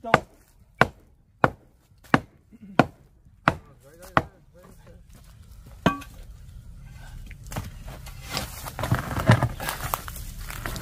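A run of seven sharp chopping strikes, evenly spaced at about three every two seconds. They stop after about four seconds, and a building jumble of rustling and small knocks follows.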